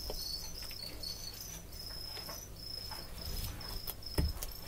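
Crickets chirping, short high chirps repeating about twice a second, with a few faint clicks and a low knock about four seconds in.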